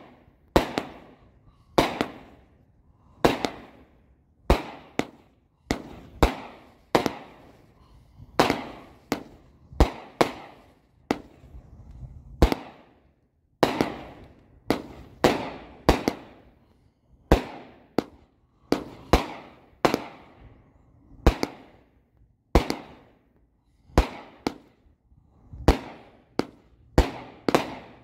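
A 30-shot, 200-gram consumer firework cake firing: a steady run of sharp bangs, about one to two a second and often in quick pairs, each trailing off briefly.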